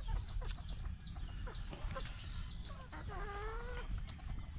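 Chickens calling: a quick run of short, high peeps in the first half, then one longer, lower call about three seconds in.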